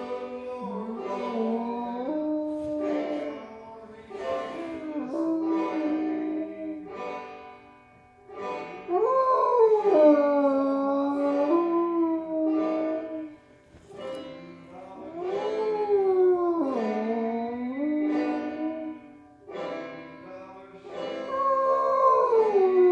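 Black and tan coonhound howling along to banjo music. A series of long howls, each rising and falling in pitch, sounds over the quick plucked notes of the banjo.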